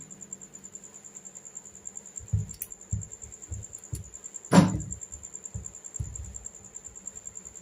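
Handling noises of ceiling fan stator wiring being worked by hand: several soft, dull knocks and one louder knock about four and a half seconds in, over a faint steady high whine.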